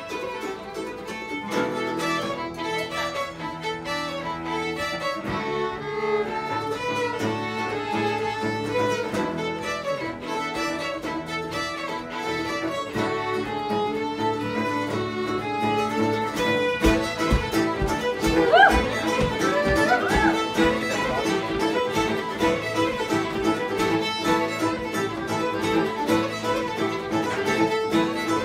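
Acoustic string band playing an old-time fiddle tune: several fiddles carry the melody in unison over a strummed acoustic guitar and a mandolin. A few low thumps come about two-thirds of the way through.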